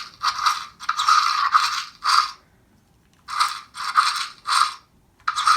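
Electronic roar sound effect from an Indoraptor dinosaur toy's small built-in speaker, set off by pressing a button: harsh, shrill bursts, loud enough to hurt the ears. About four bursts, a pause near the middle, then three shorter ones.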